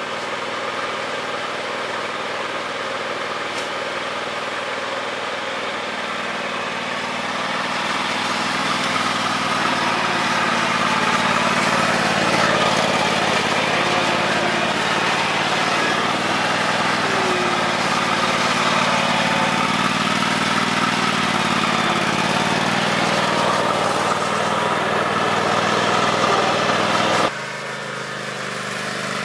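A 2009 John Deere X320 lawn tractor's 22 hp Kawasaki V-twin engine runs steadily while the tractor is driven across grass. It grows louder about seven seconds in. Near the end the sound drops abruptly to a quieter, more distant engine.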